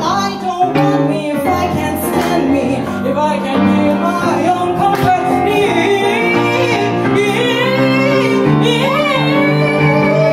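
A woman's voice singing a melody full of sliding, ornamented pitch bends in Carnatic raga style, over grand piano playing.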